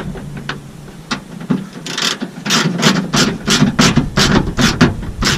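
A hand ratchet tightening a bolt on a replacement sliding-door handle, swung back and forth in short rasping strokes. The strokes are sparse at first, then come about three a second over the second half.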